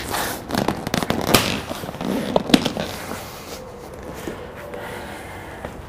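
Miata convertible top boot being pulled and tucked into place by hand: the cover rubs and scrapes, with two sharp clicks in the first half, then quieter handling near the end.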